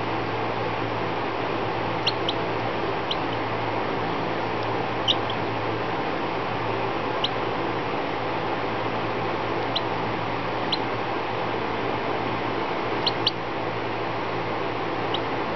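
Baby chick giving about a dozen tiny, brief high peeps, scattered singly and in pairs, over a steady background hiss and hum.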